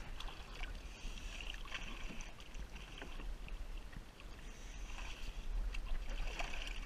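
Faint, irregular splashing and lapping of shallow pond water as someone wades at the bank, over a steady low rumble of wind on the microphone.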